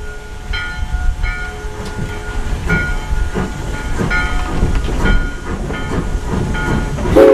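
Steam locomotive heard from its cab: slow exhaust chuffs over a low rumble, with the engine bell ringing in repeated strokes. Just before the end the steam whistle starts to blow.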